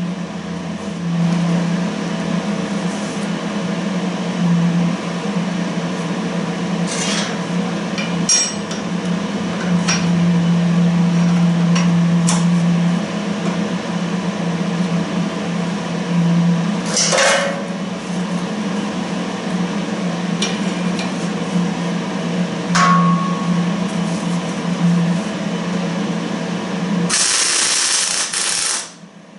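Workshop tool work: a steady motor hum with scattered knocks and clinks. A loud hiss lasts about two seconds near the end and cuts off suddenly.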